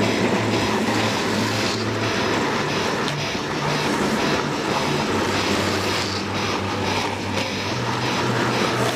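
Steady rushing noise of wind on the microphone mixed with longboard wheels rolling over asphalt, recorded on the move while riding downhill.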